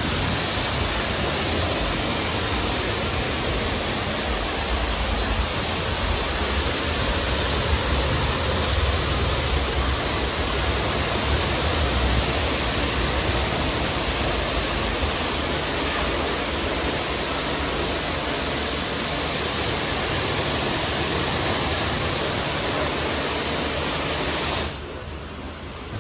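A water jet spraying steadily onto a car during washing, a loud even hiss that cuts off sharply shortly before the end.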